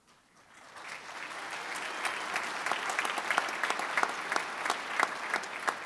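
Audience applauding, starting faintly about half a second in and building to steady applause with many separate claps.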